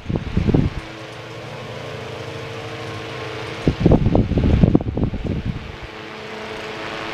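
Catalina table fan running with a steady motor hum and airflow. Loud, irregular low buffeting cuts in at the start and again from a little past halfway for nearly two seconds.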